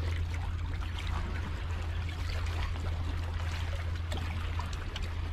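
Small waves lapping and trickling against a rock shelf at the water's edge, over a steady low hum.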